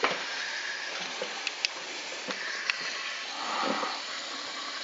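Steady hiss of water flowing through the Lobb WA-2 furnace humidifier's newly fitted float valve as its pan fills, with a few light clicks of handling.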